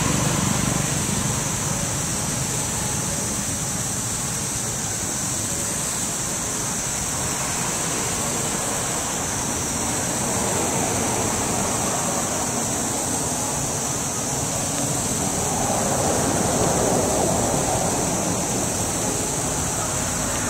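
Steady outdoor rushing noise, like wind on the microphone, with a constant high-pitched hiss over it; no distinct events.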